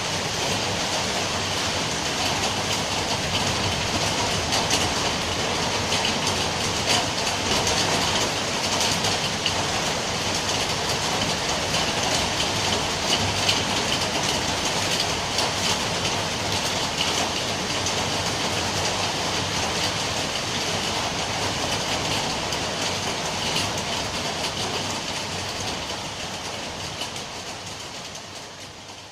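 Steady rain falling, a dense hiss of many small drop ticks, fading out near the end.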